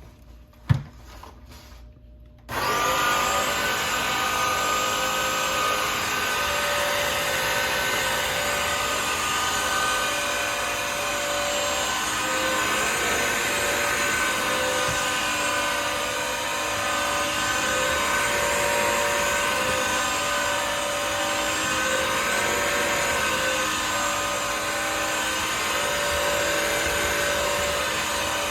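A sharp click, then a Bissell CrossWave Pet Premier wet-dry vacuum switches on about two and a half seconds in and runs steadily with a motor whine while cleaning the floor.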